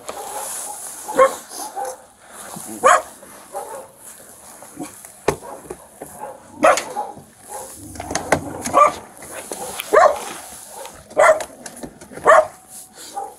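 Feral dog barking: a series of sharp barks a second or two apart, sounding mean.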